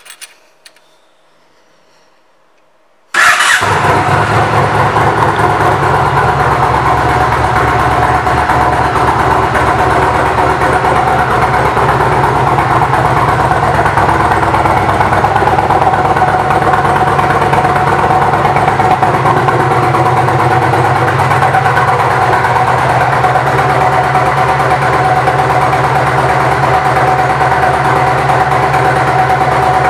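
A Yamaha Road Star's air-cooled V-twin engine fires up about three seconds in and settles straight into a steady idle.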